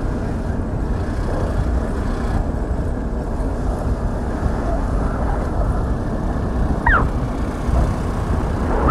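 Steady low rumbling noise of wind buffeting the microphone as it moves outdoors, with one short falling chirp about seven seconds in.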